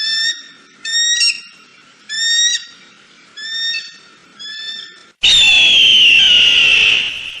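Eagle calls: a series of about five short, pitched calls, about a second apart, then about five seconds in a different, louder long call, falling slightly in pitch, that fades out near the end.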